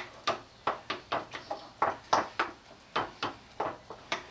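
Wooden spoon stirring beaten eggs with cauliflower and onion in a glass bowl, clicking against the glass in a quick, irregular series of knocks, about three to four a second.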